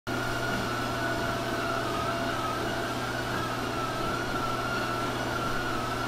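Treadmill running with inline skate wheels rolling on its moving belt: a steady hum with a high whine that wavers slightly in pitch.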